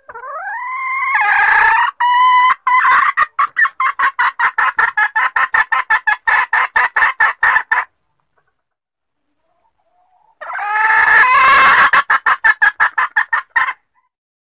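Red junglefowl hen cackling: a rising call breaks into a long run of rapid clucks, about five a second, and after a pause of about two seconds a second, shorter bout follows. It is the hen's call used as a lure to draw cock birds.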